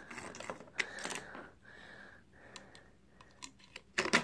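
Light plastic clicks and rattling from a Beyblade string launcher being handled, its pull cord tugged and fiddled with, with a cluster of sharper clicks near the end.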